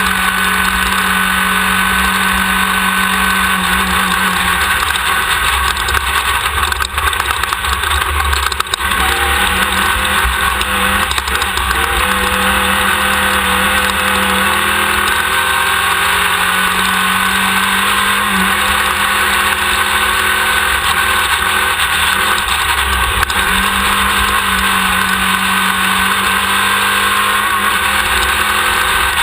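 Class 1600 off-road race buggy's air-cooled VW engine running hard at speed under a continuous loud rushing noise. The engine pitch shifts up and down about nine to twelve seconds in.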